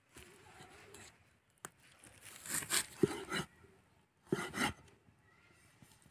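Broad curved knife slicing tomatoes on a wooden chopping block: a run of quick cutting strokes about two seconds in and a shorter one about four seconds in, with the blade knocking on the wood.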